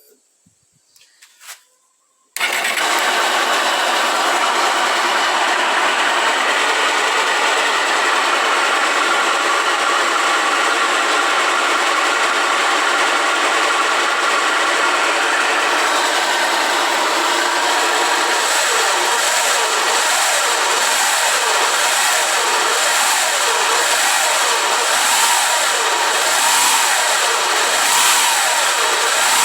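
A Honda 160 motorcycle's single-cylinder four-stroke engine starts suddenly about two seconds in and keeps running steadily, with a strong hiss (chiado) over the engine note. The mechanic suspects a failing camshaft bearing in the cylinder head, after the bike was run low on oil.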